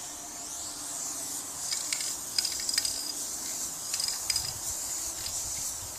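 Aerosol can of spray adhesive hissing steadily as it lays a light coat of glue onto a mount board, with a few faint ticks along the way.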